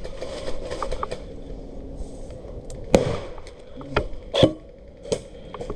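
A few scattered sharp cracks of airsoft fire, the loudest about three seconds in, then two more close together about a second later.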